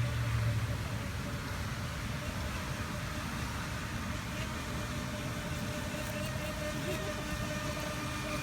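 Electric motor of a radio-controlled speedboat whining at a steady pitch. It comes in faintly past the middle and grows over a steady rushing background noise.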